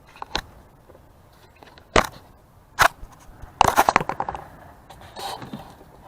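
A few separate sharp knocks, then a short quick clatter about halfway through.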